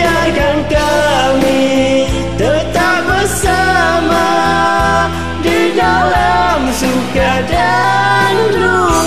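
Music: a Malay pop ballad's karaoke backing track with a gliding, voice-like melodic lead line.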